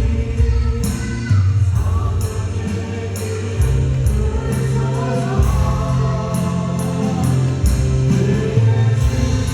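Contemporary worship band playing a song: sung vocals over keyboards, drum kit and acoustic guitar, with regular cymbal strokes and a held bass line.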